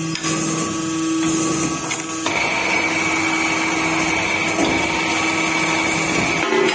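Special-purpose cross-drilling machine drilling a fan shaft: a steady machine hum and hiss, with a high steady whine that starts about two seconds in and stops near the end.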